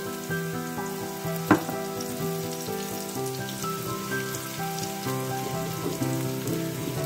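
Chopped onion sizzling as it fries in hot oil in a pan, with one sharp knock about a second and a half in. Instrumental background music plays underneath.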